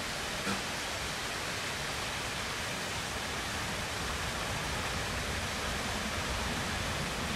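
Steady, even rushing noise with the low rumble of a distant double-headed freight train growing slowly louder as it approaches.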